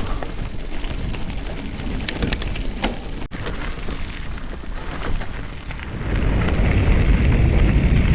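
Wind buffeting an action-camera microphone while a bicycle rolls over rough ground, with a few sharp clicks and rattles about two seconds in. The rumble grows louder about six seconds in.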